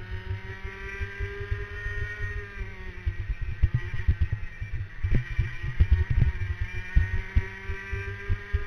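Racing kart's two-stroke engine heard onboard at speed: the engine note holds high, drops as the driver lifts for a corner about three seconds in, then climbs again as the kart accelerates out. Uneven low thumps from the mounting run underneath.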